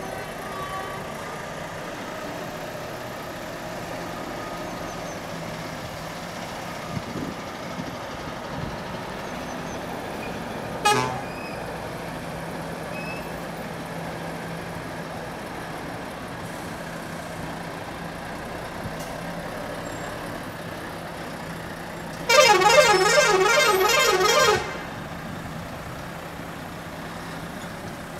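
A truck's horn blows for about two seconds with a fast warbling pitch, over the steady hum of idling engines. Earlier there is one brief sharp sound.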